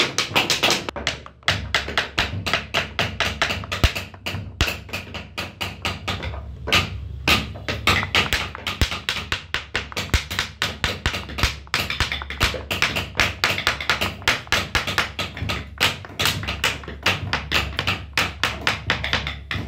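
Wooden mallet tapping a carving chisel into a wooden panel: quick, steady, rhythmic taps, several a second, with a few short pauses.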